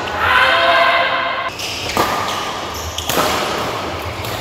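Sounds of a badminton doubles rally in an echoing hall: sneakers squeal on the court floor in the first second or so, and two sharp racket strikes on the shuttlecock land about a second apart, near two and three seconds in.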